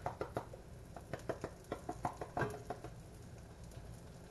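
Stingray pieces frying in butter in a pan, with irregular light pops and clicks, while seasoning is shaken from a tin over them.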